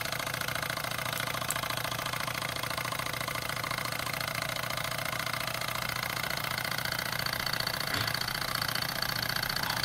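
Wilesco D10 toy stationary steam engine running steadily on a warmed-up boiler, with a fast, even rattle throughout. The rattle is its vibration carried into the ceramic tile it sits on.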